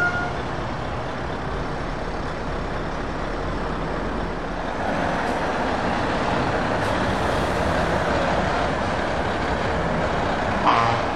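Heavy truck engines running as lorries drive off, a steady engine and road noise that grows louder about halfway through as one pulls away. There is a brief, sharp louder burst near the end.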